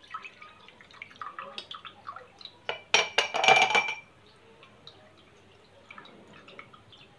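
Orange juice poured from a steel bowl through a metal tea strainer into a glass, trickling and dripping with small clinks, and a louder burst of splashing and clinking about three seconds in.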